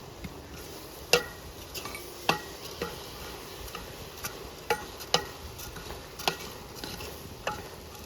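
A utensil stirring in a cooking pot, knocking against it in several sharp, ringing clinks at uneven intervals over a steady faint hiss.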